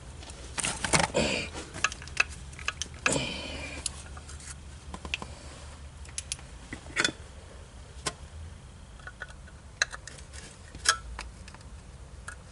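Small metal parts and hand tools clicking and clinking, with two short scraping rattles in the first four seconds, as screws are fitted during hands-on repair work.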